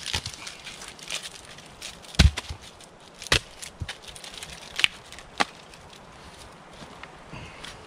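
Short wooden log sections being handled and knocked together, with a heavy thump about two seconds in and several sharper wooden knocks over the next few seconds.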